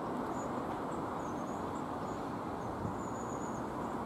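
Steady rumble of a Class 333 electric multiple unit running away along the track, with faint broken high chirping above it.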